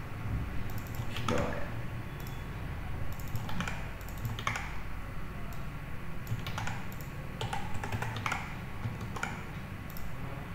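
Computer keyboard keystrokes in short irregular runs, as text is selected, copied and pasted, over a steady low hum.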